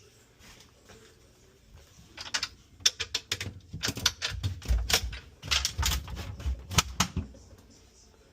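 An irregular run of light clicks and knocks, several a second, starting about two seconds in and stopping about a second before the end, with a few low thumps mixed in: hard parts being handled during refrigerator disassembly.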